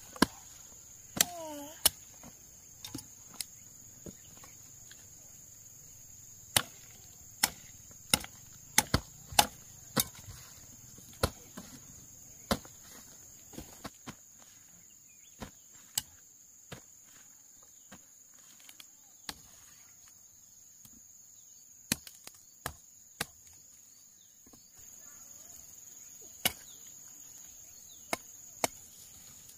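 Machete chopping cassava roots off the stump: sharp, irregular chops, sometimes in quick pairs, over a steady high-pitched insect drone.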